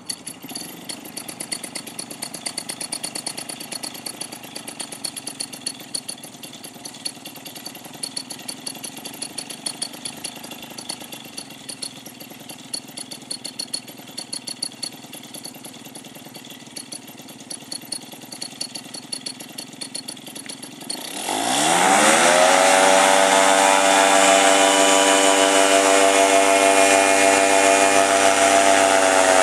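Powered paraglider trike's two-stroke engine idling with an uneven pulsing beat. About 21 seconds in it is throttled up: the pitch rises quickly and it settles into a loud, steady full-power run with propeller noise as the trike starts its takeoff roll.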